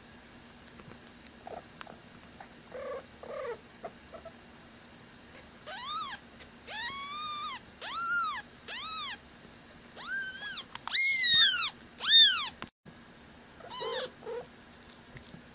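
A twelve-day-old kitten mewing: a run of about seven high, thin cries, each rising and falling in pitch. The loudest come near the end, with a few softer sounds before and after.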